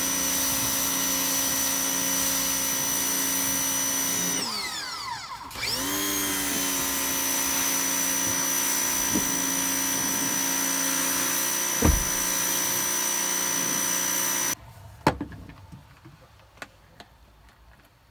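Pressure washer running steadily with a high whine, spraying water onto rubber horse stall mats; its pitch sags and comes back up about four to six seconds in. It cuts off suddenly a little before the end, leaving a few light knocks and clicks.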